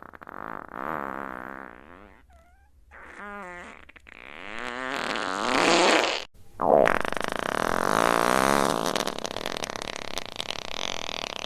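A series of fart sound effects played one after another: several short buzzy ones with wavering pitch in the first six seconds, then, after a brief break, one long, loud one lasting several seconds.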